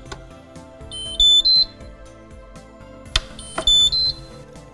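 Electronic beep signal from a Häfele Free Swing E lift-up fitting's drive unit: a short rising three-note tone, heard twice, acknowledging a programming button press. Soft background music plays underneath, and there is a sharp click just before the second signal.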